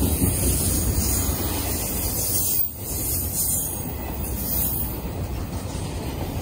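Intermodal freight train's double-stack well cars rolling past: a steady rumble of steel wheels on the rails, dipping briefly about two and a half seconds in.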